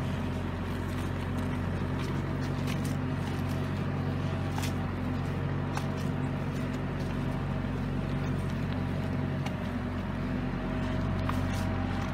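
Antonio Carraro TRX9900 tractor's diesel engine running steadily under load as it drags a large log, with a few sharp clicks over it.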